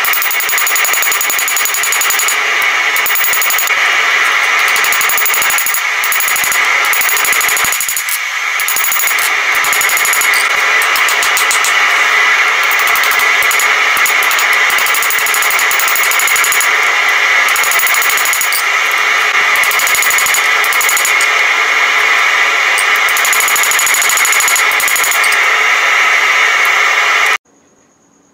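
Hand hammer striking a red-hot steel knife blank on an anvil, the blows coming so fast they run together into a continuous ringing clatter. It cuts off suddenly near the end, leaving only a faint hum.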